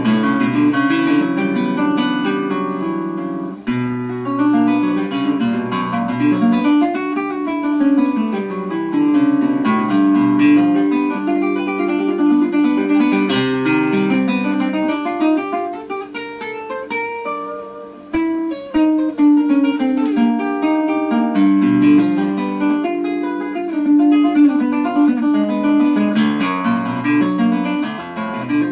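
Russian seven-string guitar played fingerstyle: quick runs of single plucked notes in repeating sequences, patterns restated at shifting pitches, over lower bass notes. There is a softer passage a little past the middle.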